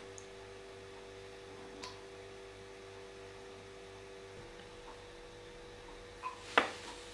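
A steady hum of a few tones, one of which drops out about four and a half seconds in. A soft click comes near two seconds, and a sharper click or knock about six and a half seconds in is the loudest sound.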